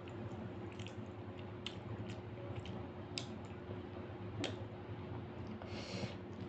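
Wet squishing and sticky clicks of rice and dal being mixed and pressed by hand on a plate, mixed with close-up chewing and mouth sounds. Scattered short ticks sit over a steady low hum.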